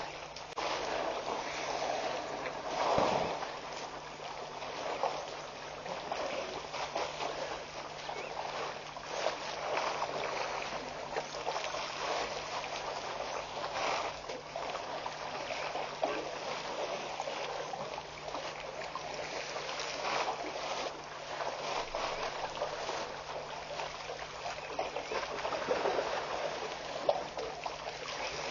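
Outdoor ambience at a waterhole where elephants are drinking: a continuous hiss that swells and fades irregularly, like water and wind on the microphone, over a faint steady low hum.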